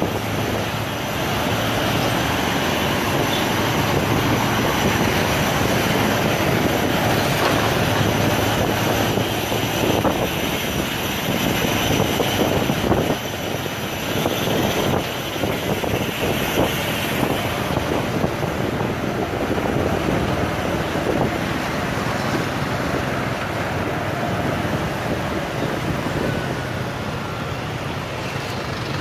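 Steady street traffic noise while riding through dense motorbike and bus traffic: a continuous drone of scooter engines and road noise.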